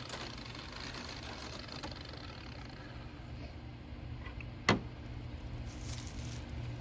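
Faint steady background noise with a low hum, broken by a single sharp click about two-thirds of the way through.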